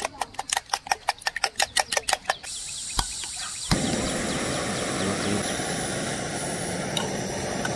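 A fork beating eggs in a metal camping pot, clinking about six times a second. After about two and a half seconds it stops, and gas hisses from a canister camping stove. Two clicks of the igniter follow, and the burner lights with a louder, steady rush of flame.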